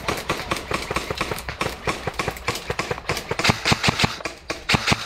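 Dry leaves and twigs crackling and snapping underfoot and against the body as a person pushes through brush, an irregular run of sharp clicks that comes thickest near the end.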